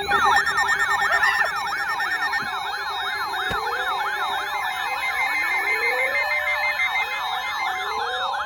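Electronic alert siren warbling rapidly up and down, about three to four sweeps a second, over a steady high tone, with slower rising glides lower down. It is the attention signal that heralds a flash flood warning broadcast.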